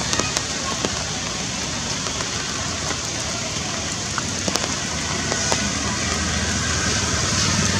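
Steady outdoor background noise: a constant hiss with scattered small crackles and clicks, and a low engine-like hum underneath that grows louder near the end.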